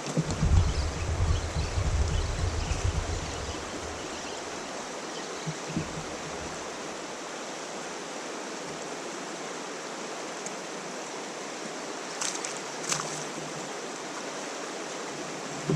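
Steady rush of flowing river water, with a low rumbling in the first few seconds and a couple of short sharp clicks near the end.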